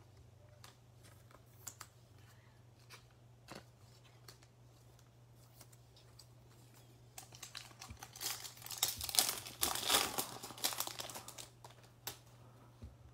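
A Topps Chrome baseball card pack's wrapper being crinkled and torn open by hand, starting about seven seconds in and lasting several seconds. Before it, a few faint clicks of cards being handled.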